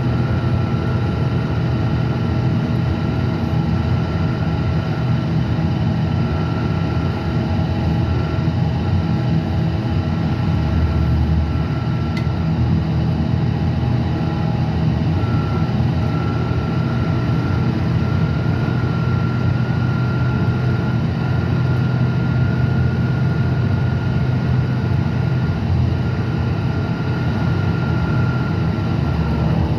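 Interior of a Gillig Advantage diesel bus in motion: the steady low drone of its Cummins ISL9 diesel engine mixed with road and tyre noise. A thin, steady high whine runs over it.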